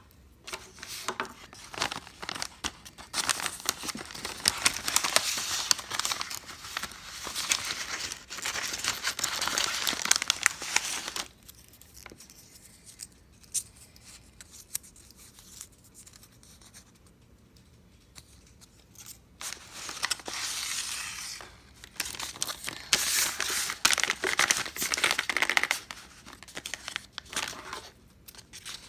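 Paper crinkling, rustling and tearing as a handmade paper blind bag is opened and its folded paper contents are handled. It comes in two long busy stretches with a quieter pause of several seconds between them.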